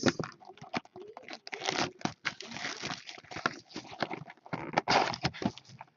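Foil wrapper of an Upper Deck Black Diamond hockey card pack being torn and rustled open, with cards handled: short, uneven spells of rustling and tearing with sharp little snaps.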